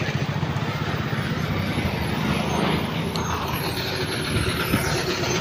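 Bus engine running close by, a steady low rumble with road-traffic noise.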